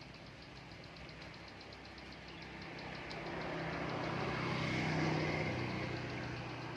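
A motor vehicle's engine passing by, growing louder to a peak about five seconds in and then fading. A fast, even high ticking runs underneath.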